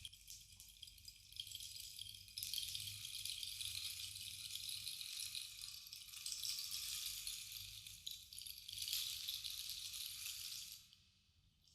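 Bamboo rainstick, its fill trickling down inside the tube in a rain-like patter. The patter grows louder a couple of seconds in, dips briefly, then fades out near the end.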